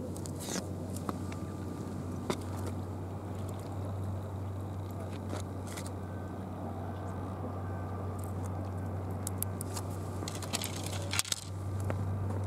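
A steady low hum with scattered light ticks, then near the end a short burst of clicks and knocks as a Japanese halfbeak (sayori) is swung in and lands on the concrete breakwater.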